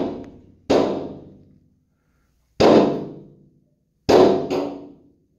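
Heavy pounding on a door: five loud bangs at uneven spacing, the last two in quick succession, each ringing out for about a second.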